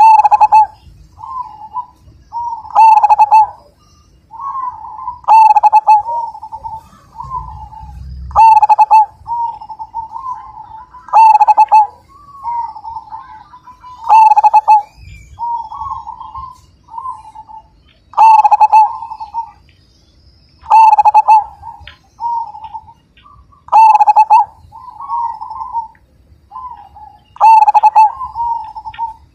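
Zebra dove (perkutut) cooing, the rolling song that Indonesian keepers breed it for. A loud call comes about every three seconds, with softer cooing phrases between.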